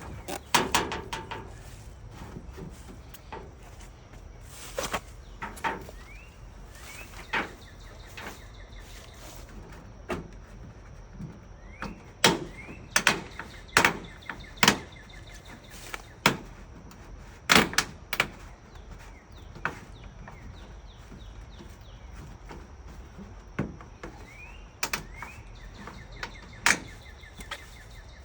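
Aluminum siding being pried and pulled off a house wall: irregular sharp metal clicks, clanks and knocks, coming thickest about halfway through. Faint bird chirps now and then.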